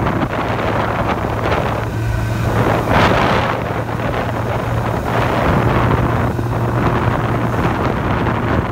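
Wind buffeting the microphone of a camera moving along a road, over a steady low hum. The rush swells briefly about three seconds in.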